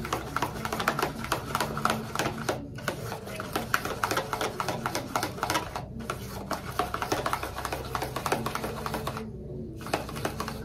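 Hair dye being stirred in a plastic bowl: quick, irregular clicking and scraping of the stirring utensil against the bowl, pausing briefly about two and a half seconds in and again just after nine seconds.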